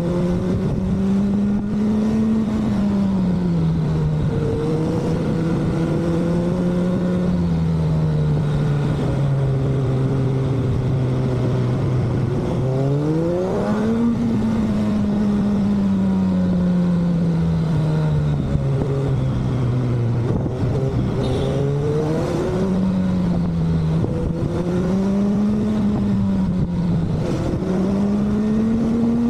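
Suzuki Hayabusa Gen 3's 1340 cc inline-four engine under way at speed, its note climbing steadily and then dropping back again and again, with one quick steep rise about halfway through. A constant rush of wind and road noise runs underneath.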